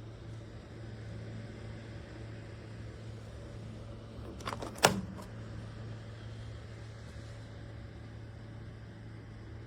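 Electric fireplace heater's fan running with a steady hum. Just under halfway through there is one sharp click, with a few fainter clicks just before it.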